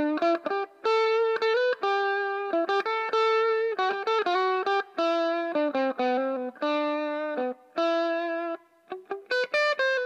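Tokai ES-60 semi-hollow electric guitar played lead: phrases of single notes and two-note double-stops, some held for about a second and some in quick runs, with short breaks between phrases.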